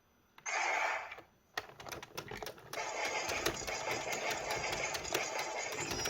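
Geartlinger toy transformation gun playing its electronic sound effects: a short noisy burst about half a second in, then a quick run of sharp clicks, then a steady, dense mechanical-sounding whir with clicks running through it.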